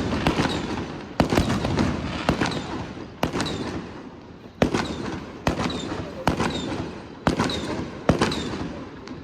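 Aerial fireworks shells bursting one after another, about ten sharp bangs over nine seconds, each trailing off in a rolling rumble.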